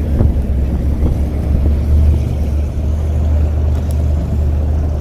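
Motorboat engine running steadily underway, a continuous low drone heard from aboard the boat.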